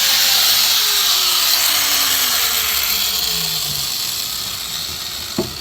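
Hand-held polishing grinder whirring and spinning down: its pitch falls steadily over about four seconds as it fades, with a click near the end.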